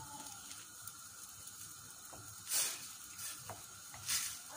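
Wooden spoon stirring a beef stock cube into a simmering tomato stew in a stainless steel pan, with two short scraping swishes about two and a half and four seconds in, over a low steady hiss.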